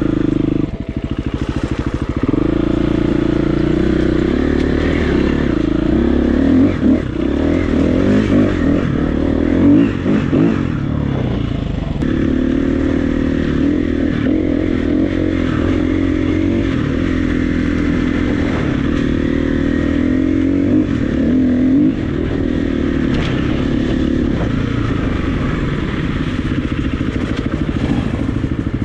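KTM 350 EXC-F single-cylinder four-stroke enduro motorcycle engine running under load, its pitch rising and falling with the throttle, then holding steadier near the end. Scattered clattering knocks are heard along the way.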